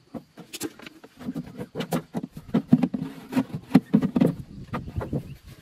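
Irregular clicks, knocks and rubbing from a hand working among the tractor's metal fuel-system parts close to the microphone.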